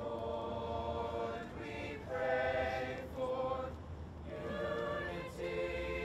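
High school choir of mixed boys' and girls' voices singing in harmony: sustained chords in phrases, with short breaks between them.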